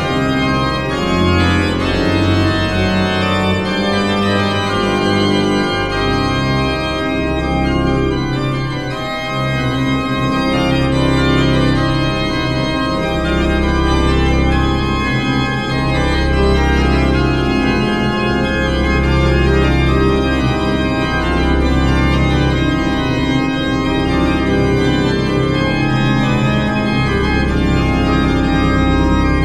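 Church pipe organ playing slow, sustained chords with deep held bass notes.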